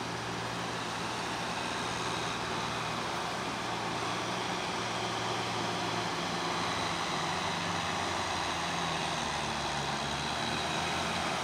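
Kubota tractor's diesel engine running steadily under load while its rotary tiller churns through flooded paddy mud, growing gradually louder as the tractor comes closer.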